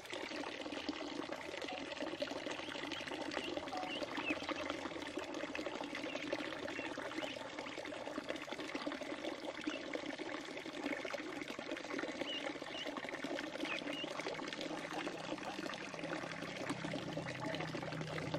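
Water pouring steadily into a shallow plastic-lined pool, with ducklings splashing in it and a few short, high peeps.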